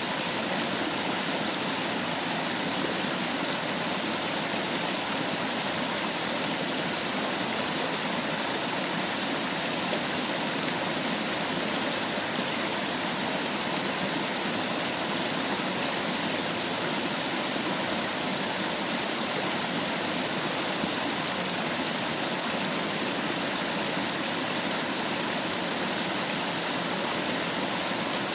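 Steady rushing of a waterfall and stream, an even, unbroken wash of falling and flowing water.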